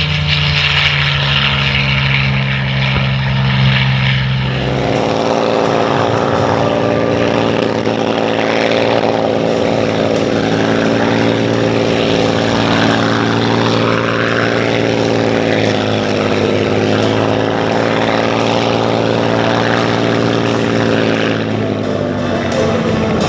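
North American P-51D Mustang's Packard-built Merlin V-12 engine running steadily in flight. Its tone changes about five seconds in, and its pitch drops slightly near the end.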